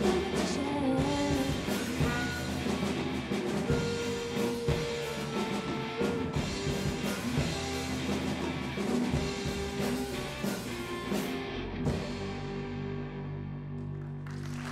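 Live rock band playing an instrumental passage on drum kit, electric guitars, saxophone and piano. About twelve seconds in the drums stop and the last chord is left ringing out, fading.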